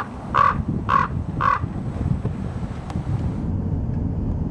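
Common raven calling: four short croaking caws about half a second apart in the first second and a half, over a steady low rumble.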